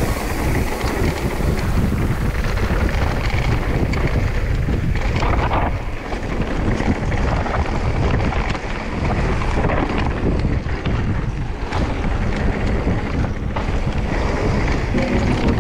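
Wind buffeting the microphone of a mountain bike descending a bike-park trail, with a steady rumble and scattered knocks and rattles from riding over rough ground.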